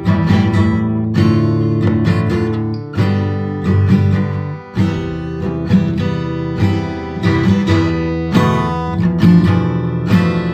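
Acoustic guitar strumming chords in a steady rhythm, playing an instrumental arrangement without vocals.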